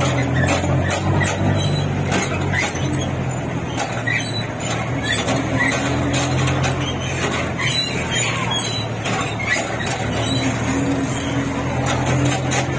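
A jeepney's bumper squeaking and rattling as the jeepney rides along: short, irregular squeaks and clicks, several a second, over the steady hum of its engine.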